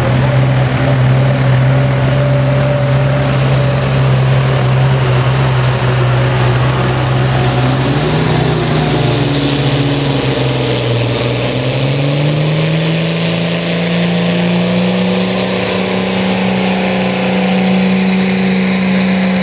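Pulling tractor's diesel engine running at a steady speed, then revving up about twelve seconds in and holding at higher revs as it takes up the load of the pulling sled.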